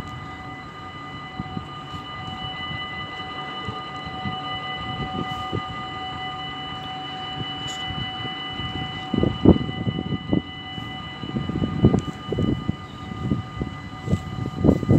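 Dutch railway crossing warning bells ringing steadily as the crossing closes, the signal that a train is approaching. From about nine seconds in, irregular low thuds come over the ringing.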